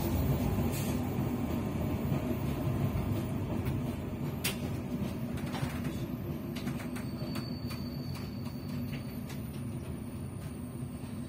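Inside a moving passenger train carriage: the steady low rumble of wheels on the rails and the running car body, growing gradually quieter, with a few light clicks and rattles.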